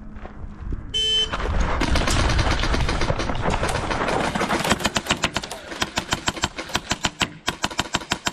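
A short electronic game-start beep about a second in, then a dense jumble of movement noise. From about halfway through, airsoft guns fire a fast, even string of sharp cracks, about five a second.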